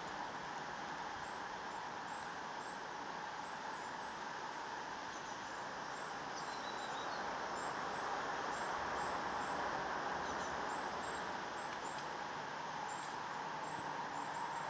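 Steady woodland background noise, an even hiss with no distinct events, with a faint high bird chirp about six or seven seconds in.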